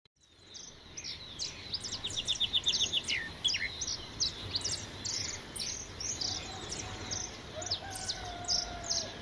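Birds chirping and calling at dawn: many short chirps and falling notes, including a quick run of repeated notes about two seconds in. A faint long, drawn-out call joins in for the last few seconds.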